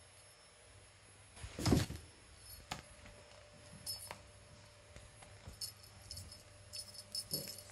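A cat pouncing on a feather wand toy: a single thump against the cardboard box and floor about a second and a half in, the loudest sound, then scattered light clicks and rustles as it bites and tugs at the feathers.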